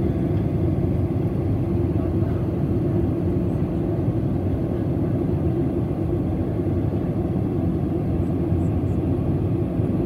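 Steady cabin noise inside a WestJet Boeing 737 in flight: the even, low rumble of the jet engines and airflow over the fuselage, heard through the cabin wall.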